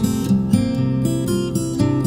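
Background music: a strummed acoustic guitar.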